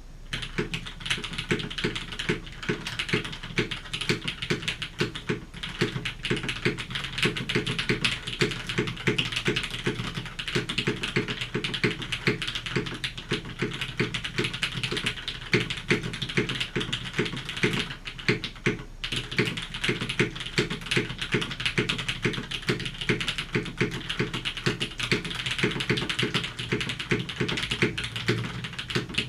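Continuous fast typing on a custom 65% mechanical keyboard: Cherry MX Black linear switches, lubed and filmed, in a top-mount polycarbonate case with an aluminium plate and GMK keycaps, giving deep, muted keystrokes.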